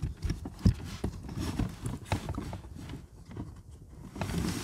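Light, irregular knocks and taps of car interior parts being handled and fitted back into place.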